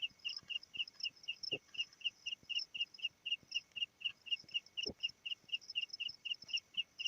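A cricket chirping steadily, about four short high chirps a second, with two faint light knocks in between.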